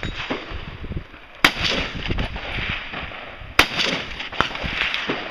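Rifle shots fired singly during a practical rifle stage: two loud shots about two seconds apart, then a fainter crack under a second after the second one, each followed by a short echo.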